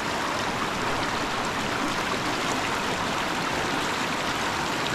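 Shallow river rapids running over stones: a steady, even rush of water with no change.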